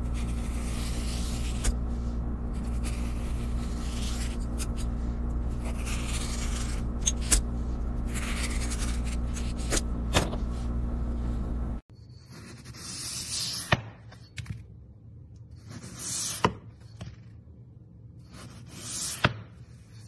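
A blade scraping and cutting through thread wound tightly on a spool, with a few sharp clicks over a loud steady hum. About twelve seconds in this gives way to a crinkle-cut knife slicing through floral foam three times, each stroke a swelling scrape that ends in a sharp click.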